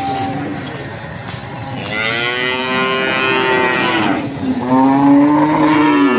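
Cattle mooing: two long moos, the second louder and still going at the end.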